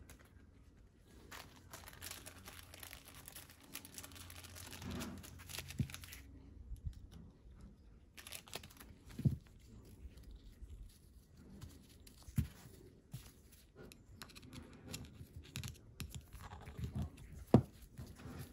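Hands working over small parts: rustling and crinkling for the first few seconds, then scattered light knocks and clicks of parts being handled and set down, one sharp knock near the end.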